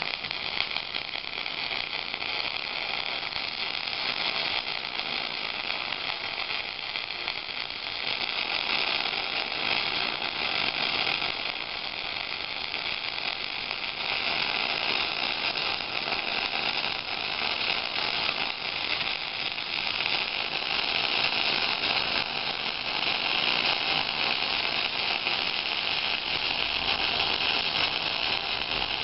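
Miller 251 MIG welder running one long, unbroken weld bead on a steel dozer blade: a steady sizzle from the arc.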